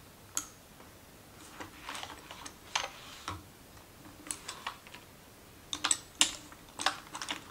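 Irregular small clicks and taps from handling make-up: a brush picking up product from an eyeshadow palette and tapping against it, in short clusters, the loudest a little after six seconds in.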